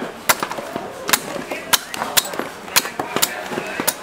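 A large knife chopping into coconuts: sharp, hard strikes, about eight in all, coming roughly every half second at an uneven pace. Voices murmur underneath.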